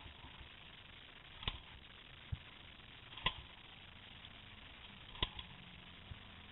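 Three sharp knocks with a short metallic ring, about two seconds apart, over a faint steady hiss; no engine is running.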